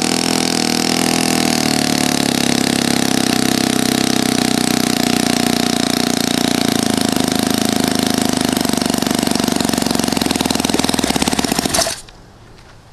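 Conley 120 DOHC four-stroke glow engine running with a wooden propeller, slowing steadily from about 4,900 rpm so its pitch falls, then cutting out abruptly about twelve seconds in. The engine's timing is set wrong, which holds its rpm down.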